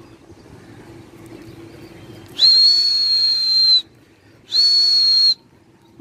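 Two loud, high whistles from the pigeon keeper: a long one of about a second and a half, then a shorter one, each at a steady pitch with audible breath. These are the whistles used to keep a released pigeon flock flying.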